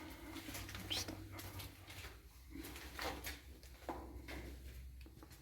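Footsteps scuffing and knocking over debris on a tunnel floor, a few irregular steps.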